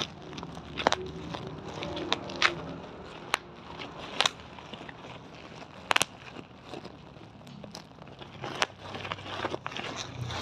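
Sharp single clicks, about eight of them, at uneven intervals of a fraction of a second to a couple of seconds, over a faint steady background.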